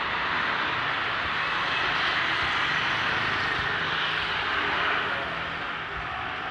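Steady hiss and rumble of city street traffic, cars and motorcycles on the road beside the pavement, easing off about five seconds in.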